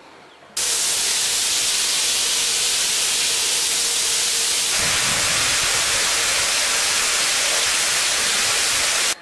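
Hot-spring water gushing from a tap into a tiled soaking tub: a loud, steady hiss of spraying, splashing water. It starts suddenly about half a second in and sounds fuller from about halfway through.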